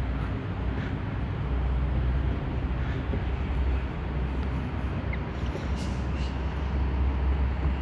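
Steady low machine rumble with a constant deep hum.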